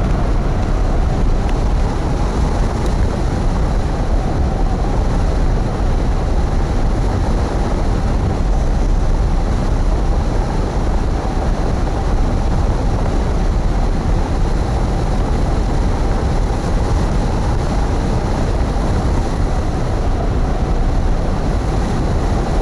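Loud, steady wind noise buffeting a wing-mounted camera's microphone as a tandem hang glider flies at speed, with a faint steady whistle running through it.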